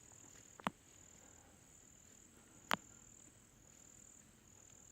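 Faint, high-pitched insect trill, like crickets, going on and off in stretches, with two sharp clicks, a small one about half a second in and a louder one near the three-second mark.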